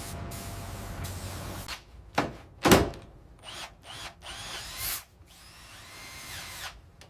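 Machinery whirring steadily with a low hum, cutting off about two seconds in. Two loud, sharp knocks about half a second apart follow, then quieter scattered clicks and rustling.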